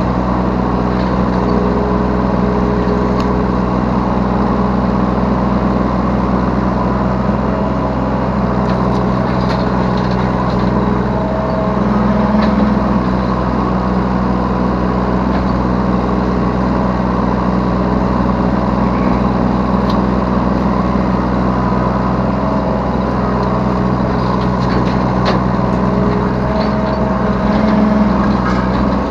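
Yanmar B3 Sigma mini excavator's diesel engine running steadily at close range, its note swelling briefly twice, about twelve seconds in and near the end, with light scattered knocks.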